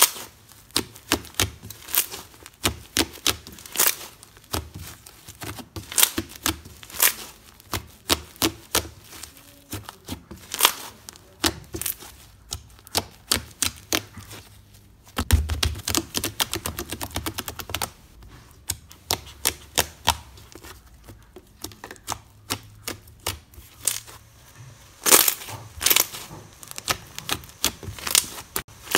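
Large white fluffy slime being squeezed, pressed and poked by hand, giving irregular sharp clicks and pops several times a second, with a low squelching rumble about halfway through and a denser run of loud pops near the end.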